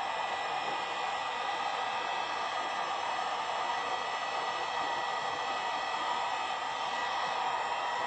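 Handheld heat gun blowing steadily, a constant rushing hiss of hot air played over the vinyl wrap on the boat's hull to soften it as it is worked down.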